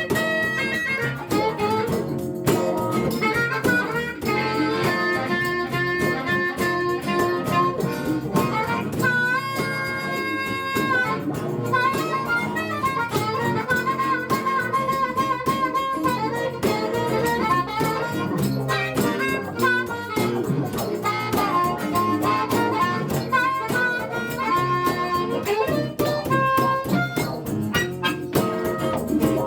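Blues harmonica taking an instrumental solo over a live band with guitar, with held notes and notes bent in pitch, in a blues-rock groove.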